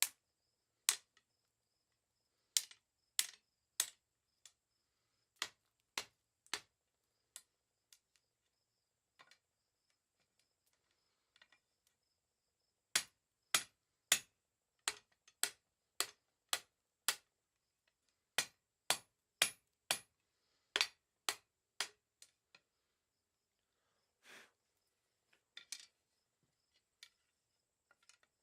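Blacksmith's hand hammer striking half-inch mild steel round bar on an anvil: sharp single blows, scattered and irregular at first, then a steadier run of about one to two blows a second in the second half.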